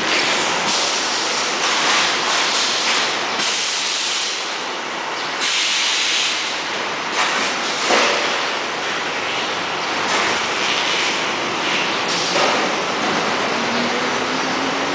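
Steady, dense hissing noise of a running SBS bitumen membrane production line, with no clear rhythm. A faint tone slowly rises near the end.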